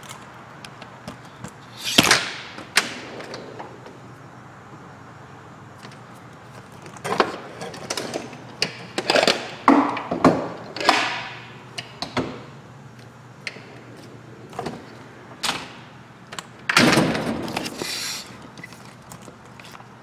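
Metal pliers clinking and clattering as a toolbox drawer full of pliers is rummaged through, with longer sliding scrapes about two seconds in and again near the end.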